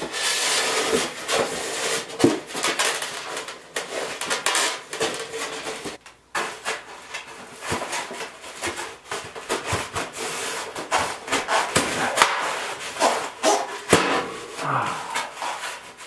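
Rigid foam insulation board rubbing and scraping as it is pushed and worked by hand into the gap under a window air conditioner, with irregular light knocks against wood.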